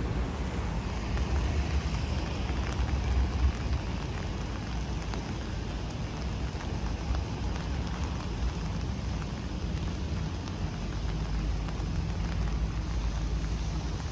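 Steady rain falling on wet paving, an even hiss of patter with a low rumble underneath.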